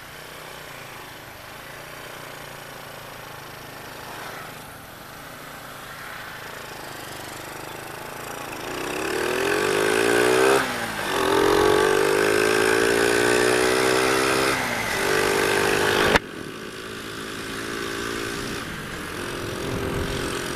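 Honda Astrea Grand's 100cc four-stroke single-cylinder engine running through a stock, ungutted Honda Absolute Revo muffler while ridden. It cruises at a steady, moderate note at first. From about eight seconds in it accelerates hard, the exhaust note rising, dipping at a gear change and rising again. It drops off abruptly about sixteen seconds in and settles to a steadier, quieter run.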